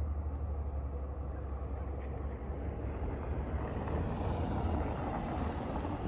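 Wind rumbling on the microphone, with a car's tyres and engine growing louder as it drives up and crosses the tracks in the second half.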